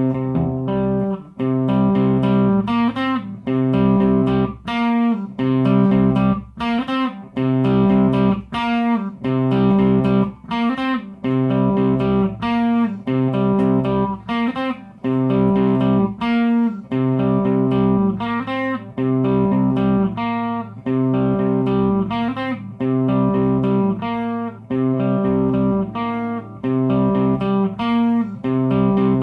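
Electric guitar played through a Line 6 POD Pro amp modeler, picking a repeating pattern of chords and single notes in a steady rhythm.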